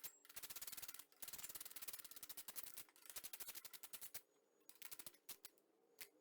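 Socket ratchet clicking rapidly as a 12 mm bolt is turned, pausing briefly twice. After about four seconds it slows to a few separate clicks.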